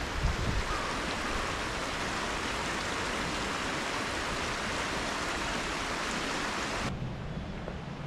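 Mountain stream rushing, a steady hiss of water, with a few low thumps near the start. About seven seconds in it cuts off abruptly to a duller, quieter water sound.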